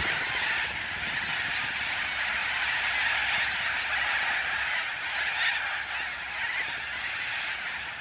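A huge flock of little corellas screeching together in a dense, unbroken din.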